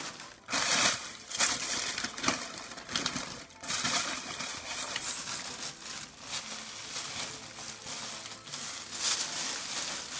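A parcel's packaging being unwrapped by hand: irregular crinkling and rustling in quick, uneven strokes.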